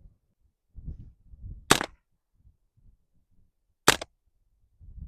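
Two single .22LR shots from an AR-15 carbine with a .22LR conversion kit, about two seconds apart, each a sharp crack, with faint low rumbling between them.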